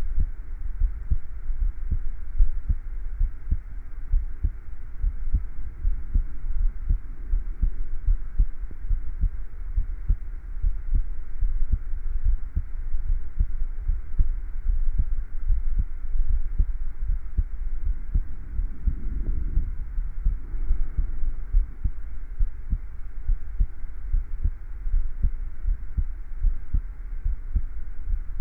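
A person's heartbeat, a steady run of deep low-pitched thumps.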